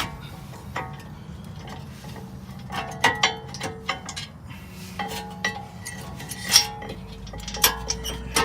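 Irregular metallic clinks and knocks, some with a short ring, as a brake caliper and its bracket are worked into place against the hub and the bolt holes lined up. The clinks bunch around three seconds in and again in the last few seconds.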